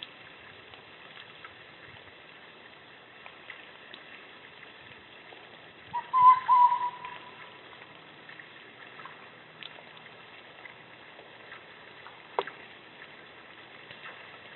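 An animal's wavering, whistle-like call, heard once for about a second and a half, over faint steady background hiss. A short sharp click comes near the end.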